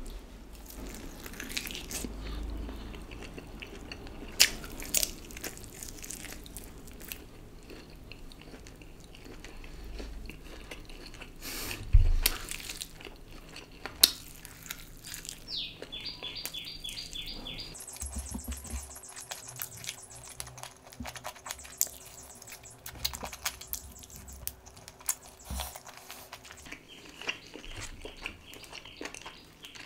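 A person chewing and biting a KFC Smoky Red grilled chicken leg, close to the microphone, with a few sharp loud smacks about 4, 12 and 14 seconds in.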